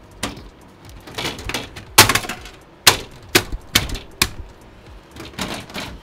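Sharp clicks and knocks from a computer case's side panel being handled and taken off, with about five louder ones in quick succession through the middle.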